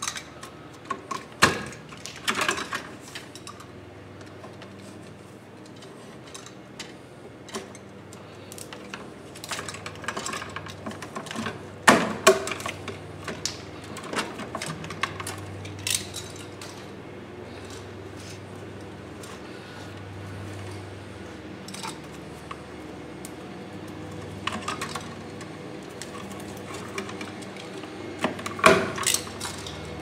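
Electrical cable ends being stripped by hand with metal hand tools: irregular clicks, snips and scraping, with a few sharper clacks, the loudest about twelve seconds in and again near the end.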